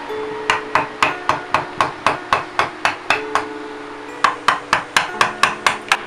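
Mallet tapping a chisel into wood to carve a lyre: a quick run of about four even blows a second, a pause of over a second, then a second run.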